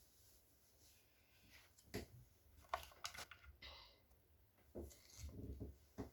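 Quiet handling noises: a few soft clicks and rustles as a sticker is peeled and pressed onto a plastic phone holder.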